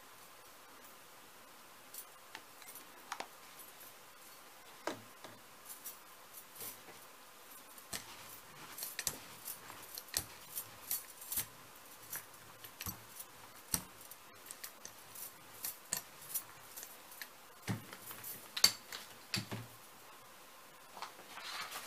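Light, scattered ticks and taps as fluid acrylic paint is squeezed from a bottle onto a gel plate, then, from about eight seconds in, a busy run of small clicks and ticks as a hand brayer is rolled back and forth through the paint across the plate.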